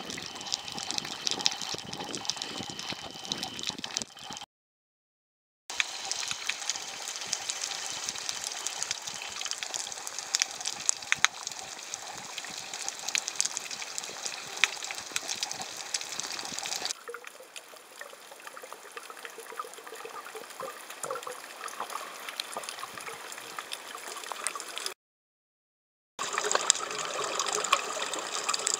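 Underwater ambience on a coral reef picked up by a submerged camera: a steady hiss with dense fine crackling ticks. It drops to dead silence twice for about a second where clips are joined, and it is duller and quieter for several seconds in the later part.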